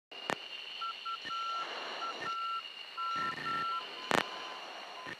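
F-15C cockpit intercom audio: short electronic beeps switching on and off in an irregular pattern of short and long notes, over a steady high-pitched whine. Two sharp clicks stand out, one just after the start and one about four seconds in.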